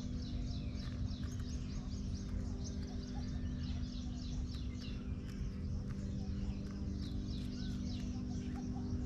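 Small birds chirping rapidly and continuously, a quick stream of short high notes that thins out toward the end, over a steady low hum.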